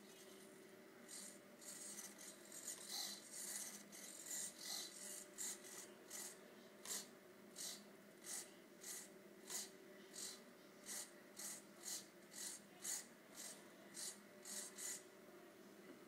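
Two small RC hobby servos in a paraglider pilot figure's arms buzzing in short rasping bursts, more than twenty of them at about two a second, as the arms are driven up and down by radio control.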